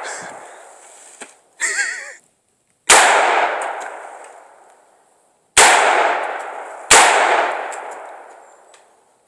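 AR-15 rifle fired three times, about three, five and a half, and seven seconds in, each shot followed by a long echoing decay. A short wavering pitched sound comes just before the first shot.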